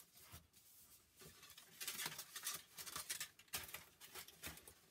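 Paper and card rustling and crinkling as a homemade paper hat is pressed and adjusted on a head: a string of short, faint scrapes and crackles, busiest in the second half.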